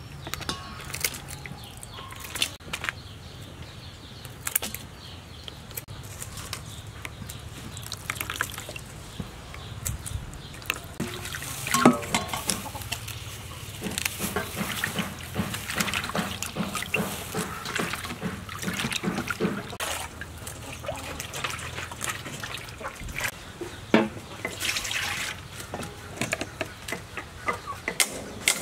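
Water splashing and dripping as hands wash lettuce leaves in a stainless-steel basin, with irregular small splashes and clicks.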